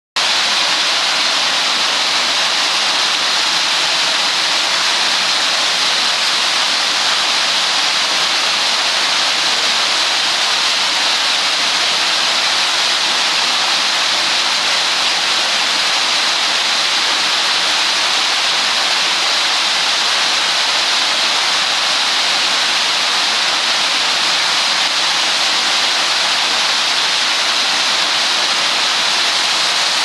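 Underground waterfall in a cave passage pouring down over rock: a loud, steady rush of falling water that does not change.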